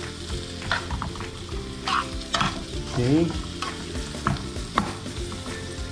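Broccoli, carrots and green beans sizzling in a nonstick frying pan with the steak's fat, stirred and tossed with a fork. A dozen or so sharp clicks of the fork against the pan come at irregular intervals.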